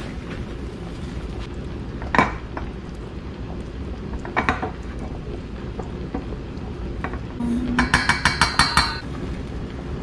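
Kitchenware clinking: a single sharp clink about two seconds in, another about four seconds in, then a quick run of about eight ringing clinks near the end.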